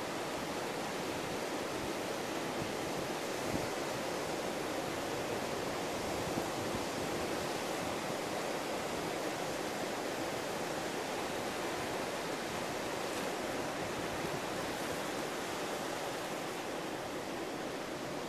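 Ocean surf breaking continuously, mixed with the rush of river water flowing into the sea: a steady, even wash of water noise.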